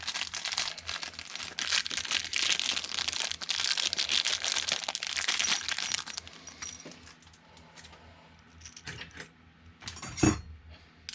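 Plastic packaging crinkling and rustling as it is handled, for about six seconds, followed by quieter handling clicks and a single knock near the end.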